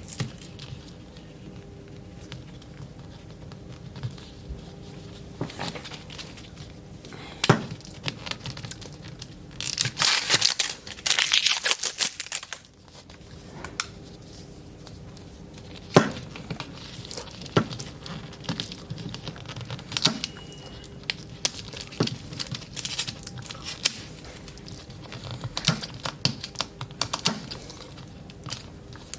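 Plastic wrapping of Mini Brands toy capsules being torn open and crinkled by hand, with scattered small clicks and knocks, and a louder stretch of tearing about ten seconds in.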